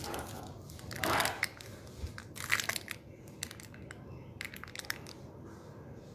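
Crinkling and rustling of a filled piping bag being handled and turned in the fingers close to the microphone, in short irregular bursts.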